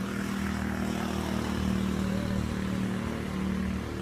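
A motor vehicle's engine running at a steady hum, with a constant low drone and a hiss of noise above it.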